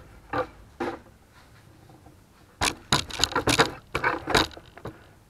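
Handling clatter: two light knocks, then about two seconds of sharp metallic clinks and knocks a little past halfway.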